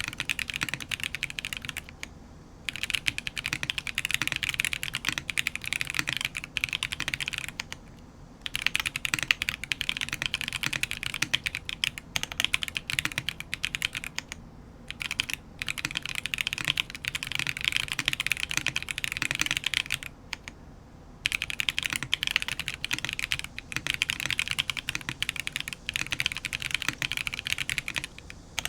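Fast continuous typing on a custom 65% mechanical keyboard with TTC Holy Panda tactile switches, lubed with Krytox 105/205, mounted on a carbon fibre plate with no case foam. The keystrokes come in runs of several seconds, broken by four or five short pauses of about a second.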